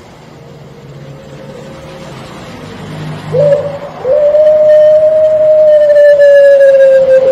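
Puter pelung ringneck dove cooing: a short note about three seconds in, then one long drawn-out coo held for about three seconds, slowly falling in pitch.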